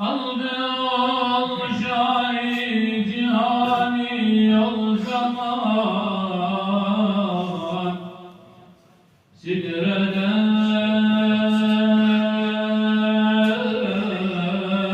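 A man's unaccompanied voice chanting a Turkish Islamic hymn in long, slowly ornamented held notes. There are two phrases, with a breath pause about eight and a half seconds in.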